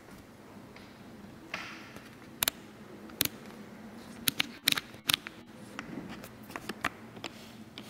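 Scattered sharp clicks and taps over quiet room tone, clustered most thickly a little past the middle.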